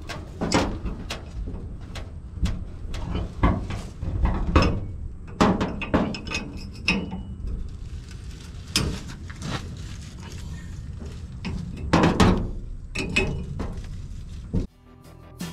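A hand tool knocking and clanking against the race car's metal body panel: irregular sharp knocks, about one every second, some ringing briefly. Music starts just before the end.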